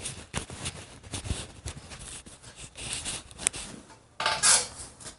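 Scattered light metal clicks and taps from a crank-handled wrench turning bolts out of the plate of a cam bearing installation tool, with one brief louder scrape about four seconds in.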